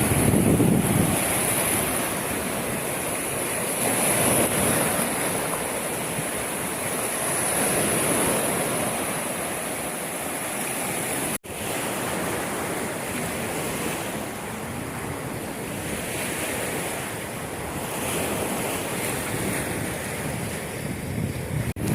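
Sea surf washing onto the shore in repeated swells, with wind buffeting the microphone. The sound cuts out for an instant about halfway through.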